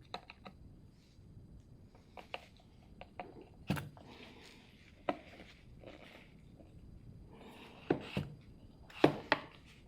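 Scattered clicks and knocks from a cordless electric chainsaw being taken apart by hand, with short stretches of scraping or rustling. The sharpest two knocks come close together near the end.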